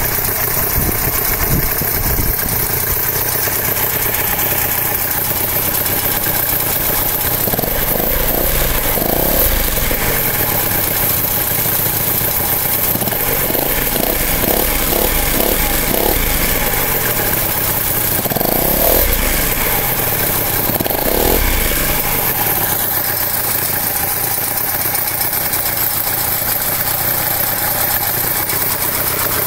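Homemade twin-engine paramotor built from two Yamaha VR150 two-stroke motorcycle engines, running on the ground with its propeller turning. It idles at first, is revved up and down repeatedly through the middle, then settles back to idle for the last several seconds.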